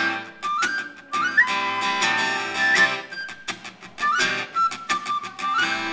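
Acoustic guitar strumming under a high whistle melody played on a small handheld wind instrument, its notes sliding up into pitch.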